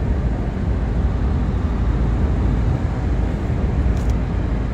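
Steady low rumble of a car driving along a highway, with tyre and engine noise heard from inside the cabin.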